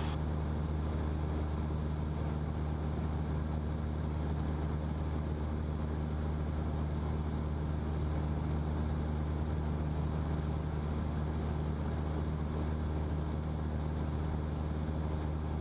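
Single-engine Cessna's piston engine and propeller running at steady pattern power, a constant low drone heard inside the cockpit.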